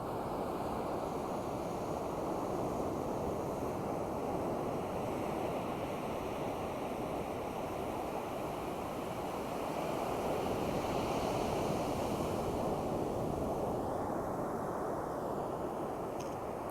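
Sea waves washing onto the shore: a steady rush of surf that swells gently twice.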